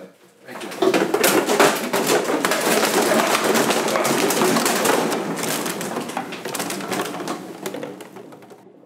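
A pile of plastic water bottles tumbling down and clattering onto a tiled floor, a dense rattle of many small knocks and crinkles. It sets in about a second in and thins out near the end.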